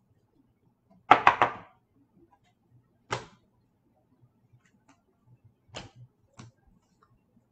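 Stiff hockey trading cards being handled: a quick run of sharp clicks and taps about a second in, a single tap about two seconds later, and fainter taps near the end.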